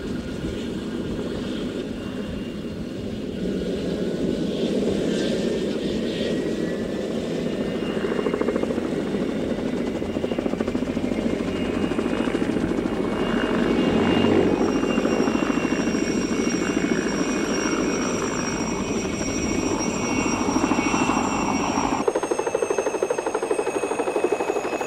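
PZL Mi-2 twin-turbine helicopter in flight, coming in to hover: a rapid, even beat of rotor blades with a high turbine whine over it, growing louder as it nears.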